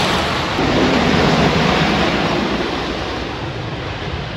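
Wooden roller coaster train rumbling along its track, a loud rolling noise that swells about a second in and then slowly fades.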